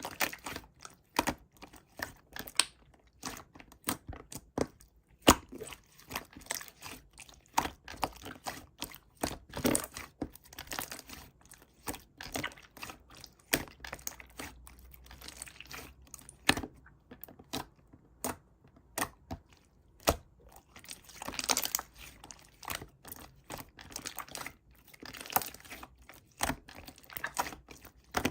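Slime being squeezed and poked by hand, making irregular sticky clicks, pops and crackles, with denser crackling twice.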